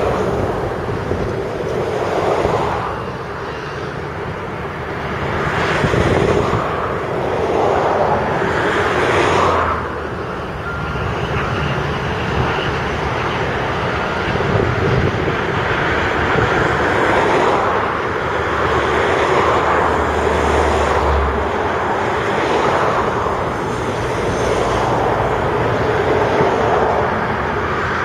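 Diesel engines of Volvo articulated dump trucks and a tracked excavator working an earthmoving site. The mixed engine noise swells and fades every few seconds, with a low steady engine drone for a few seconds about two-thirds of the way in.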